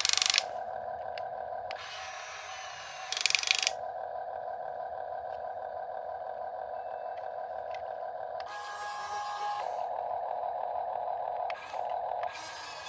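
Electric motors and plastic gearboxes of a Huina 1/14 scale RC excavator whining steadily as it works. Short, louder rattling bursts come at the very start and about three seconds in.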